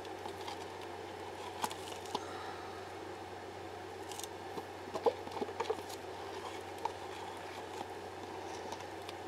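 A few light clicks and taps of a plastic stir stick and plastic cup being handled, most of them clustered about five seconds in, over a steady background hum.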